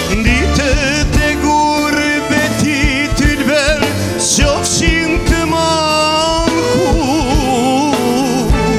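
A man singing a Balkan folk-pop song live with strong vibrato and ornamented, wavering runs, backed by keyboard and guitar.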